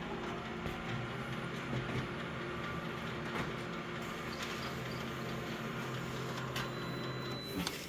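Photocopier running a copy: a steady mechanical hum and whir with a few light clicks, and a sharp clunk near the end.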